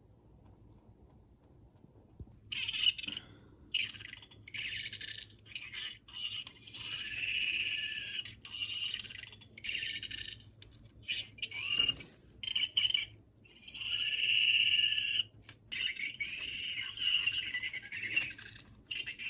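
Electronic toy creature sound effects from a small speaker: a string of high-pitched chirps and squawks in short bursts, starting a couple of seconds in.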